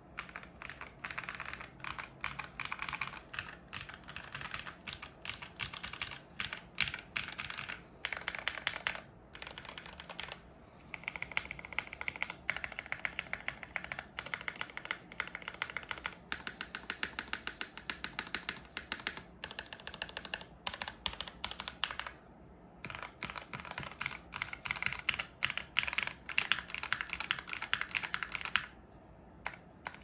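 Typing on a mechanical keyboard: lubed SP-Star Meteor White linear switches in an o-ring-gasket-mounted Maker Scarlet TKL with a POM plate. Rapid runs of keystrokes with short pauses about ten, twenty-two and twenty-nine seconds in.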